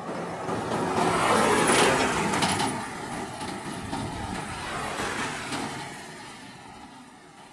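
A lorry driving past close by, its engine and tyres swelling to a peak about two seconds in with a few short rattles, then fading away.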